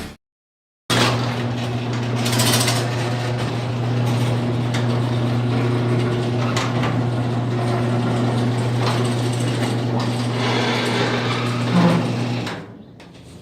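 1999 Jeep Cherokee XJ engine running with a steady hum and a rattle like the marble in a spray-paint can, which the owner suspects is a loose pulley on the serpentine belt drive. The sound drops away sharply shortly before the end.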